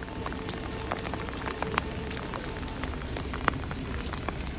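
Rain falling: an even hiss with scattered sharp drop ticks at irregular intervals, over a faint steady hum.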